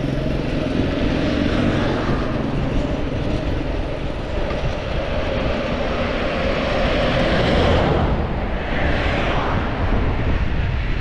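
Wind rushing over the microphone with tyre and road noise from an e-bike riding at about 25 km/h. It swells briefly about seven to eight seconds in.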